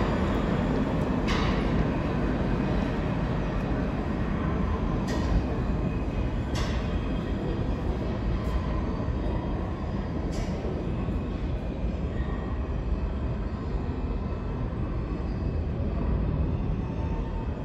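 Pullman Standard R46 subway train in an underground station: a steady rumble of wheels and motors, with a sharp click every second or two in the first half, slowly easing off.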